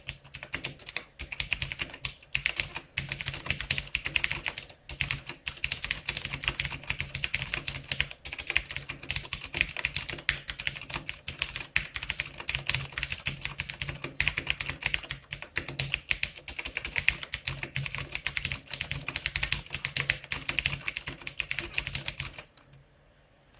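Fast, continuous typing on a CM Storm Quickfire Rapid-i mechanical keyboard with clicky Cherry MX Blue switches: a dense stream of sharp key clicks that stops about a second before the end.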